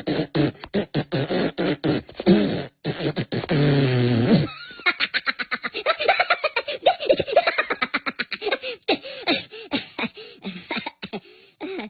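Cartoon Minions laughing: rapid, choppy bursts of laughter, with a longer drawn-out laugh about four seconds in.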